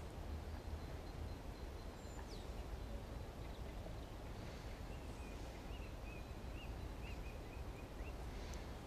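Steady low wind rumble on the microphone, with faint bird chirps and a short run of twittering in the middle.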